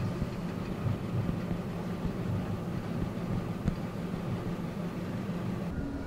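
Tour boat's motor running steadily, a low even hum.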